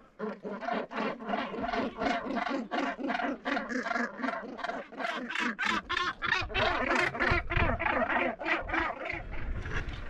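Northern gannet colony calling: many overlapping calls, several a second. A low rumble joins about halfway.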